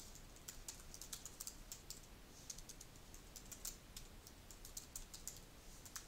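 Faint typing on a computer keyboard: many quick keystrokes in short, irregular runs.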